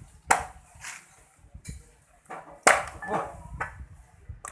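Knife chopping roasted goose meat into pieces: a few sharp chopping strikes, two of them loud, about two and a half seconds apart.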